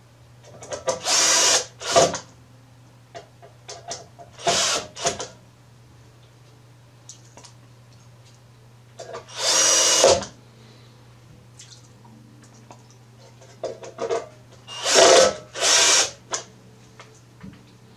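Cordless drill/driver driving screws into the sheet-metal blower housing: the motor runs in short bursts, about seven in all, with small clicks and taps between them.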